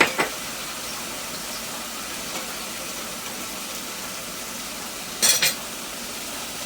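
Tomato-onion masala frying gently in oil in a pan, a steady low sizzle, with a metal spoon clinking against the pan near the start and a quick rattle of clinks about five seconds in.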